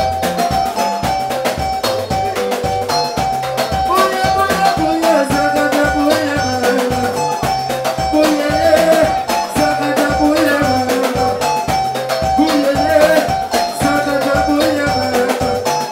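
Soukous band music: melodic guitar lines over a pulsing bass and a fast, steady drum beat.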